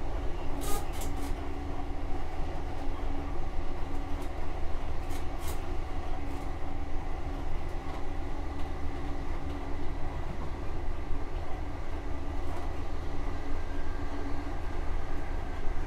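Class 43 HST with its Paxman VP185 diesel engine running as the train travels along the line: a steady low rumble of engine and wheels on rail with a held hum, broken by a few sharp clicks about a second in and again around five seconds in.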